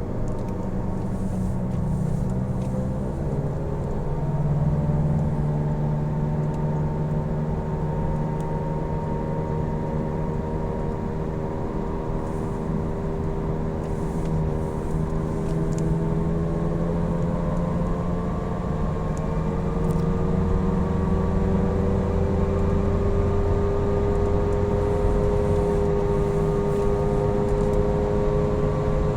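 Loud road noise from Falken FK510 tyres while driving: a steady low rumble with a droning hum whose pitch drifts slowly and rises a little after about twenty seconds.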